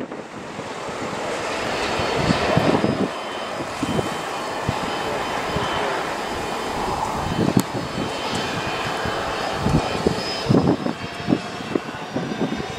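Jet airliner engines running, a steady roar with a faint whine in it. Gusts of wind buffet the microphone now and then.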